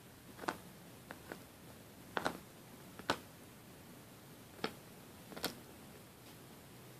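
Dog chewing a hard Nylabone chew bone: the teeth click and crack against it in sharp, irregular clicks, about eight in all.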